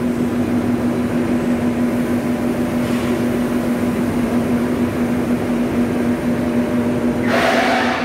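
Blowroom machinery in a cotton spinning mill running, a loud steady hum with a constant mechanical noise under it. Near the end a brief rush of hissing lasts under a second.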